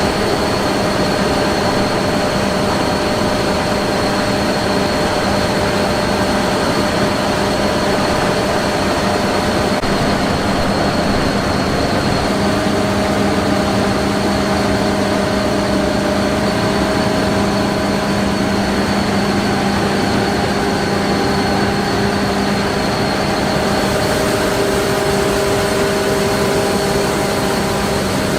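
Combine harvester running steadily: a loud, even mechanical drone with a thin high whine held over it.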